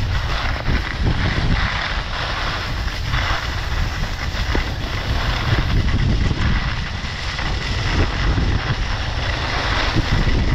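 Wind buffeting a moving camera's microphone, with the hiss of skis scraping over packed snow swelling and fading as they turn.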